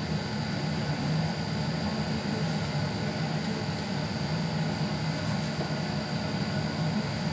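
Steady mechanical hum with a thin, steady high whine, like a running fan or blower motor.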